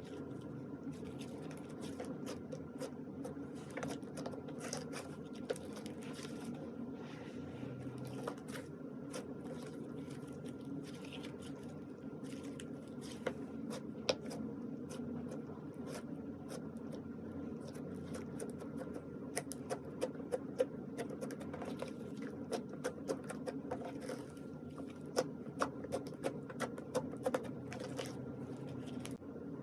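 Slime being squished and mixed by hand: a run of small wet clicks and pops, more frequent in the second half, over a steady low background hum.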